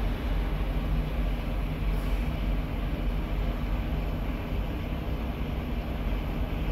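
Steady low rumble of a truck's engine running, heard inside the cab, with a few faint steady hum tones under it.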